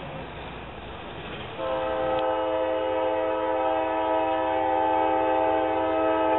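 Train air horn sounding one long, steady blast, a chord of several notes held together, starting about one and a half seconds in.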